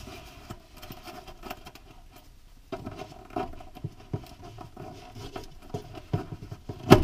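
Light irregular tapping and rustling of a white electrical cable being handled and pushed against the plywood inside a kitchen cabinet, with one sharp knock near the end.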